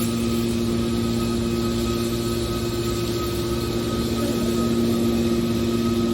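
Hydraulic can baler's power unit, an electric motor and pump, running with a steady, even hum.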